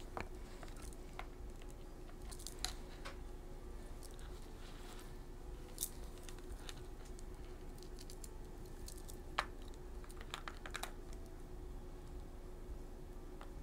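Sparse small clicks and taps of jewelry pliers working a metal jump ring and chain, a few seconds apart, with a small cluster near the end, over a faint steady hum.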